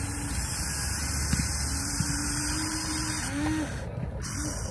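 Small electric motors of a Huina 1593 RC excavator whining as the arm and bucket dig into dirt, the whine rising briefly in pitch near the end, over a steady low rumble.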